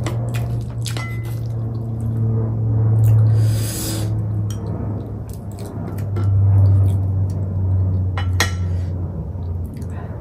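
Close-miked eating sounds: metal chopsticks clicking against the foil tray and plate, chewing of noodles and momos, and a short slurp of noodles about three and a half seconds in. A steady low hum runs underneath.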